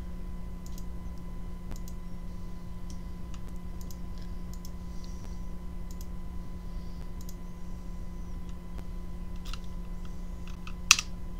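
Scattered clicks of a computer mouse and keyboard, with one louder click near the end, over a steady low electrical hum.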